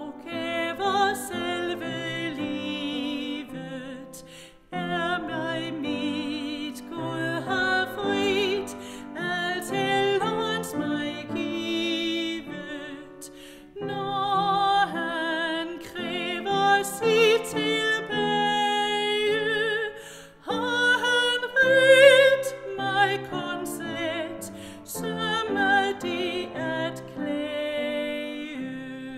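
A female solo voice sings a Danish hymn with vibrato, accompanied by piano, in phrases with short breaks between them.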